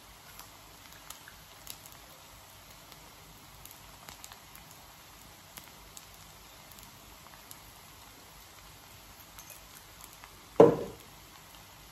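A spoon stirring fried rice in a wok, with faint scattered clicks and a low crackle. About ten and a half seconds in comes one loud, short knock that rings briefly.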